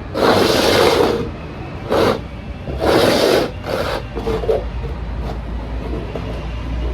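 Upturned cups sliding and scraping across a surface as they are shuffled, in four strokes over the first four seconds, then only small scuffs.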